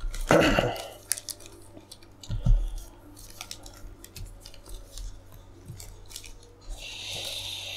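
Foil trading-card packs crinkling and rustling as they are handled and shuffled in the hands, with a louder crackle at the start and a low thump about two and a half seconds in.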